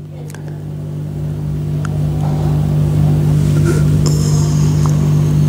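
A steady low hum made of several even, level tones, swelling louder over the first three seconds and then holding. A faint high whine joins about four seconds in.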